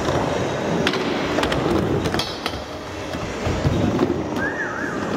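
Skateboard wheels rolling on concrete with a continuous rumble, and sharp clacks of the board about one and two seconds in. A short wavering squeak sounds near the end.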